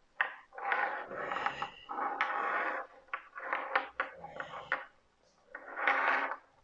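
A person's voice making wordless vocal sounds in several bursts, with a short pause near the end.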